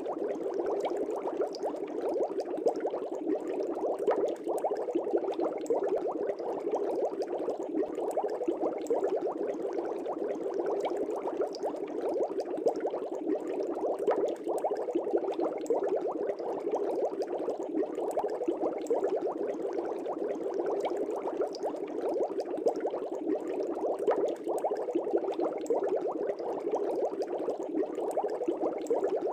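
Air bubbles rising steadily through aquarium water: a dense, continuous bubbling made of many tiny pops, even in level throughout.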